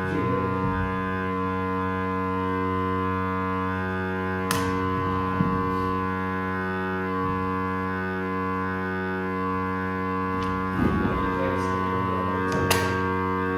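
Background music of sustained, held chords, with a couple of faint clicks or knocks under it.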